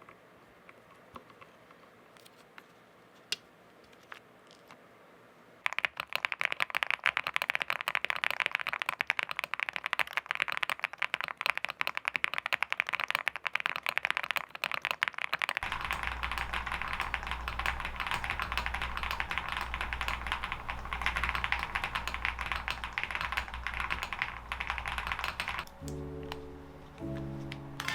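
Meletrix Zoom TKL Dyna keyboard being typed on fast: a dense run of rapid key clicks that starts after a few seconds of near quiet with a stray tap or two. Partway through, a steady low hum sits under the typing, and near the end the clicks give way to music.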